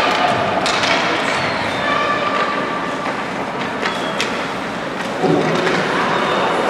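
Ice hockey in play: a steady scraping noise of skates on ice, with a few sharp clacks of sticks and puck and faint distant shouts.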